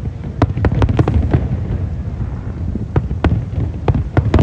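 Aerial fireworks display: shells bursting in a rapid series of sharp bangs and crackles over a continuous low rumble, with the cracks bunched in the first second and a half and again near the end.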